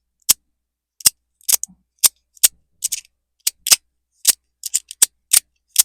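Magnetic fidget slider being swiped back and forth, its curved plates snapping into place with a series of sharp clicks at an irregular two to three a second.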